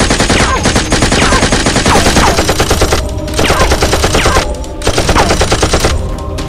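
Automatic gunfire sound effect in long, rapid bursts, with short breaks about three and four and a half seconds in. Short falling whines are mixed in with the shots.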